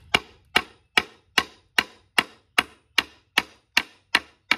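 A scrap block of wood on top of a wrought-iron baluster being struck to drive the spindle into its wooden board: twelve sharp, even knocks, about two and a half a second.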